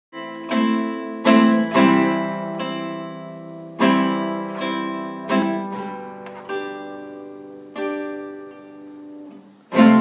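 Solo acoustic guitar intro: about ten chords strummed one at a time and left to ring out and fade, with a brief lull just before a loud strum near the end.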